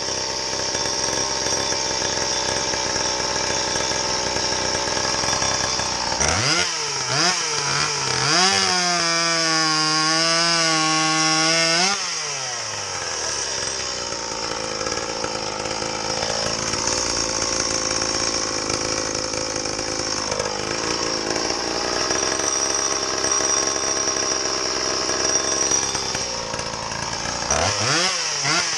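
A Stihl MS170 30cc two-stroke chainsaw, fitted with a homemade expansion-chamber exhaust, running under load while cutting wood. About six seconds in it revs up to a high, wavering pitch, then drops back about halfway through and settles into steady cutting. It revs up again near the end.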